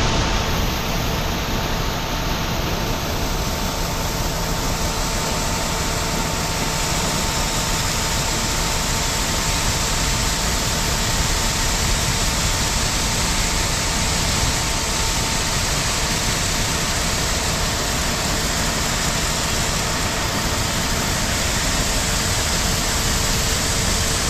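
High-pressure water jet hissing steadily as it sprays against a dump truck's steel body and rear tyres, over a steady machine hum with a faint held whine.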